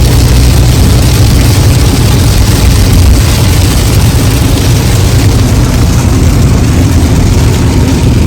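Steady road and wind noise of a car driving along, loud and unbroken.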